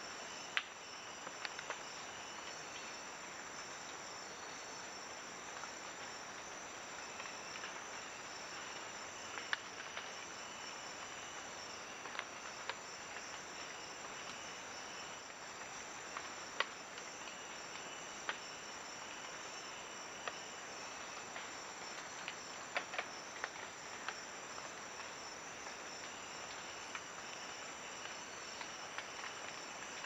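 A steady, high-pitched chorus of night insects such as crickets, with scattered sharp ticks throughout.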